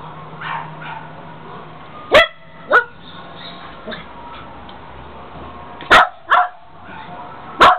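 Small white terrier barking: five short, sharp barks, a pair about two seconds in, another pair around six seconds, and a last one near the end.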